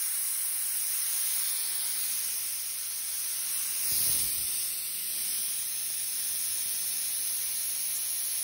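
HVLP spray gun blowing compressed air with its trigger held open: a steady hiss. The air is supplied by two combined compressors, and the pressure is holding.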